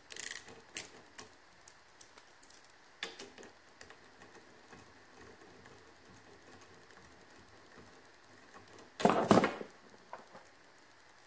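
Ratchet wrench with a 14 mm socket loosening a windshield wiper arm nut: scattered light ratchet clicks, with a louder clatter of the tool about nine seconds in.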